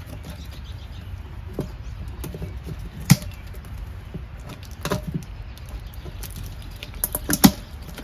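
A few sharp knocks and clatters of things being handled, the loudest about three seconds in and a quick cluster near the end, over a low steady rumble.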